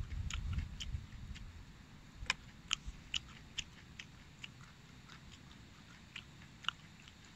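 A person chewing a piece of raw chili pepper: scattered small clicks and smacks of the mouth, the loudest two a little past two seconds in, with a low rumble in the first second or so.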